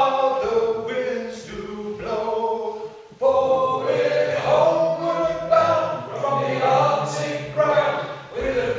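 A group of men singing a sea shanty a cappella, in sustained phrases with a short breath break about three seconds in.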